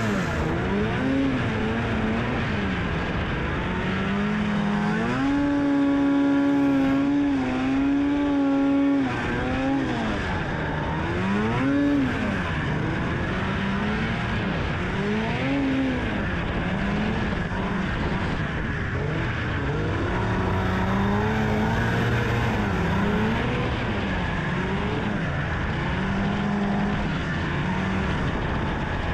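Arctic Cat ZL snowmobile's two-stroke engine under way, its pitch rising and falling over and over as the throttle is worked, held steady at a high pitch for a few seconds about a fifth of the way in. A steady rush of noise runs underneath.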